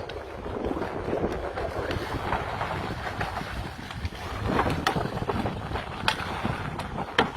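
Wind buffeting the microphone over a steady low rumble aboard a boat at sea, with a few sharp knocks at irregular moments, the strongest near the end.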